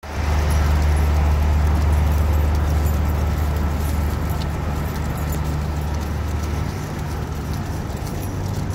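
City street traffic noise with a large vehicle's engine idling close by, a low steady hum that fades about three-quarters of the way through.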